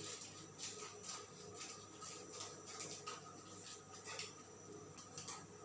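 Faint, irregular light clicks and rustling from small kitchen things being handled, over a low steady hum.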